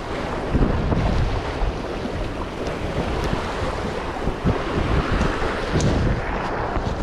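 Wind buffeting a GoPro's microphone in a steady low rumble, over rough surf washing against jetty rocks.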